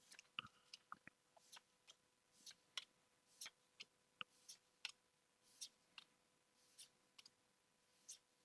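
Pokémon trading cards being flipped through one by one by hand, a soft swish or snap of card stock about every half second to a second.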